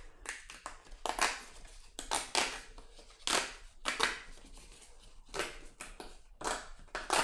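Stiff cardstock rustling and scraping in the hands as a card is slid into and out of its cardstock envelope, in short, irregular strokes.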